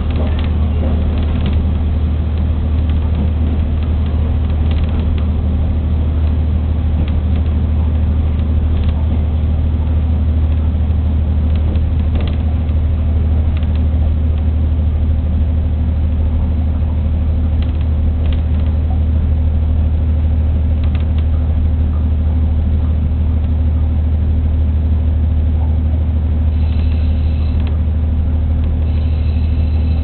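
Steady low drone of a diesel railcar running at speed, heard from inside the carriage, with a few faint clicks from the wheels on the rails. A faint high tone comes in near the end.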